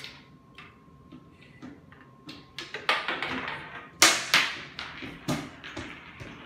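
Marbles clattering down a Quadrilla wooden marble run: a string of clicks and knocks, busiest and loudest from about three to four and a half seconds in.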